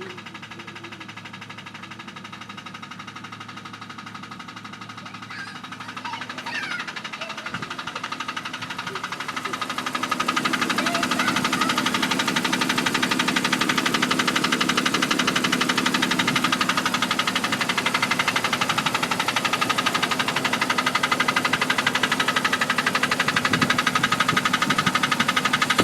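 1999 Jeep Cherokee's 4.0-litre straight-six engine idling with a rapid, steady ticking. A mechanic listening with a stethoscope ruled out a valve or lifter, and the owner suspects a cracked flex plate. The sound grows louder over about the first ten seconds, then holds steady.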